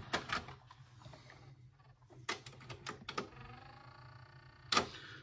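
Philips DCC 600 Digital Compact Cassette deck's tape transport clicking several times, with a faint motor whir in the second half, as it loads the tape and tries to read it. This deck loads tapes but fails to read them, a fault the owner guesses is mechanical.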